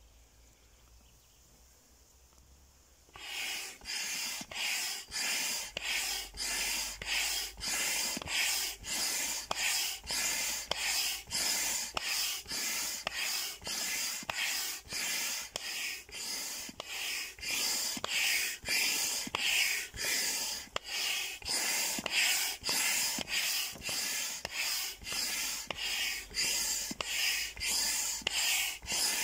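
Hand air pump being worked in quick, even strokes, about two a second, each stroke a whoosh of air pushed through the hose into a large vinyl inflatable duck, starting about three seconds in.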